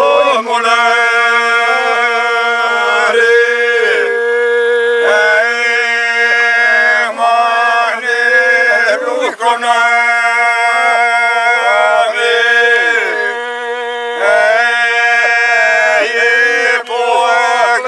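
A group of men singing traditional folk song a cappella, one low note held steady as a drone under the moving upper voices, phrases breaking off and starting again every couple of seconds.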